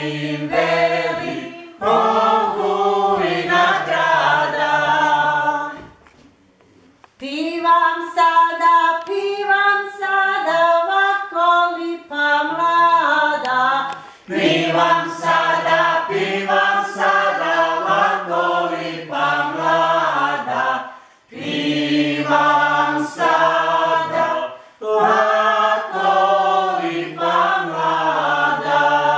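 A small mixed group of dancers singing a Croatian folk dance song from Ogulin unaccompanied, in short sung phrases with a brief break about six seconds in. After the break, a phrase is carried by higher voices alone before lower voices join again.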